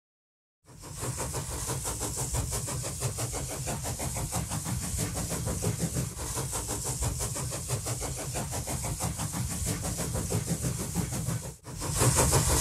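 Train locomotive engine running steadily with a fast, even throb and a hiss. It starts after a moment of silence, and a cut about a second before the end brings in a louder stretch of the same running.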